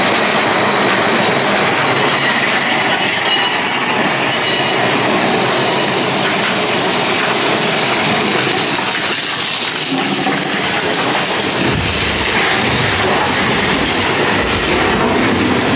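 Big Thunder Mountain Railroad mine-train roller coaster running along its track: a loud, continuous rattle and clatter of the cars, with a deeper rumble coming in about twelve seconds in.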